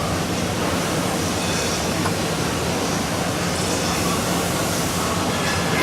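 Welding fume extraction table's blower running steadily, a continuous rush of air with a low hum.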